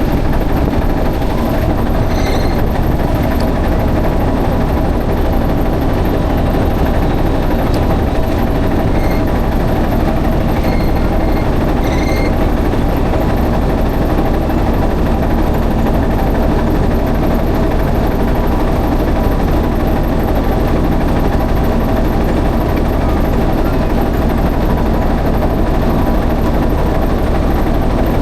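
A motor boat's engine running steadily, a constant low drone, with a few faint high chirps about two seconds in and again around ten to twelve seconds.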